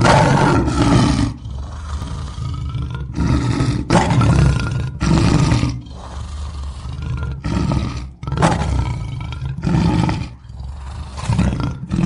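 Male lion roaring: a string of about nine deep, loud roars, each about a second long, with short pauses between them.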